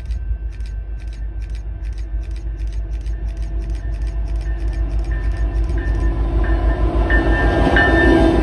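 Canadian Pacific SD70ACU diesel-electric locomotive approaching and passing at the head of a container train. Its deep engine rumble grows louder throughout, and a whine and wheel noise come up as it draws level near the end. A run of faint sharp clicks, about three a second, sounds through the first six seconds.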